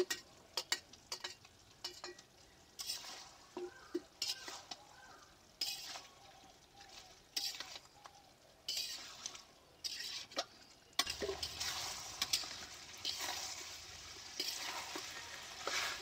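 A spatula scraping and stirring goat meat and fried potatoes in an iron kadai, the masala-coated pieces sizzling as they are fried down dry (the kosha stage of the curry). The stirring comes in irregular scrapes with clinks against the pan, and the sizzle turns steadier about eleven seconds in.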